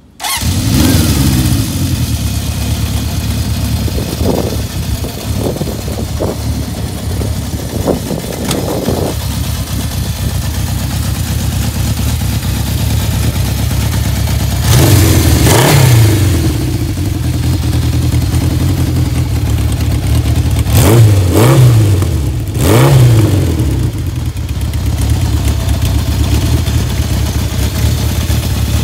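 1969 Honda CB750 Sandcast's air-cooled inline-four starting, catching at once and idling. About halfway through it is revved once, and a few seconds later three quick throttle blips follow, each rising and falling in pitch.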